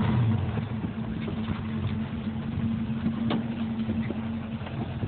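1977 Chevrolet pickup's engine idling steadily, just after being restarted.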